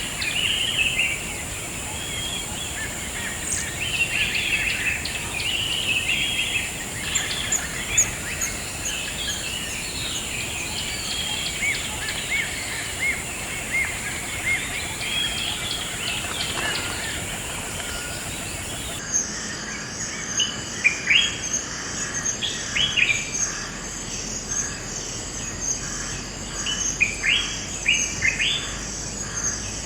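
Forest ambience of many small birds chirping and singing over a steady high insect hiss. About two-thirds of the way through, the backdrop switches suddenly to a pulsing insect chorus, with short, sharp rising chirps over it.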